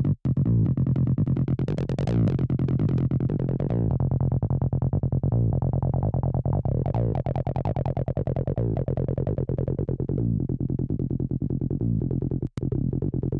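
Acid-style electronic music: a fast, repeating synthesizer bass line whose squelchy filter sweeps up and down. It cuts out for an instant just after the start and again near the end.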